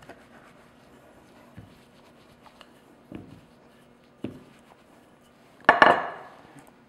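A wooden rolling pin rolling out a sheet of puff pastry on a floured granite counter, with a few soft knocks. Near the end there is a louder brief rustle as the pastry sheet is lifted off the counter to be turned.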